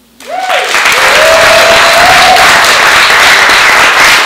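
An audience bursts into loud applause at once, with one long whoop over the clapping in the first couple of seconds: the end of a performance.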